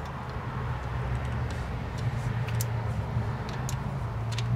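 A steady low hum, with a few faint sharp metal clicks as a drum-brake shoe spring is worked by hand.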